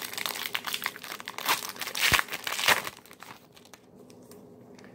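A Topps baseball card pack's wrapper being torn open and crinkled by hand: dense crackling for about three seconds, loudest around two seconds in, then only a few faint rustles.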